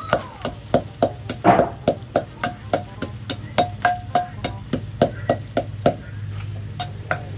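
Wooden pestle pounding in a mortar, about three knocks a second, each with a short ringing tone, with a brief pause near the end. Soaked sticky rice is being pounded into khao bue to thicken a Lao stew.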